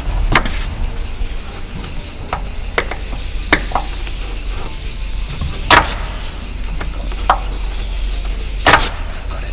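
Small screwdriver prying at the retaining clip on a bonnet gas strut's end fitting, giving scattered sharp clicks and knocks of metal on metal and plastic, the loudest about halfway and near the end.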